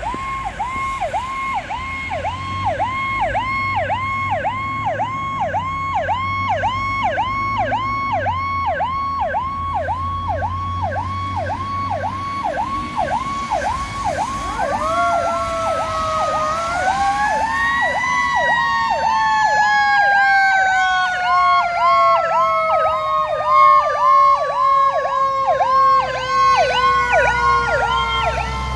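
Fire truck sirens: an electronic siren warbling in a rapidly repeating pattern throughout. About halfway through, a Federal Q2A mechanical siren joins, winding up over a couple of seconds and then slowly coasting down in pitch. A low rumble runs underneath.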